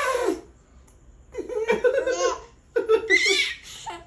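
A baby laughing in two high-pitched bursts of giggles, the first starting a little over a second in and the second about a second later, with a fainter giggle near the end.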